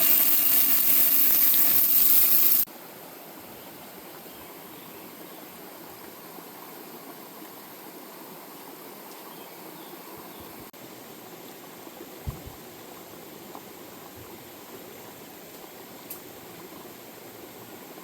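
Stream water running: a loud, close rush for the first two to three seconds that cuts off suddenly, then a quieter, steady flow.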